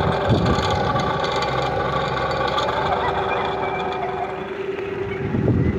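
Bumper boats' small motors running steadily, a constant drone with a held tone. A louder low rumble rises near the end.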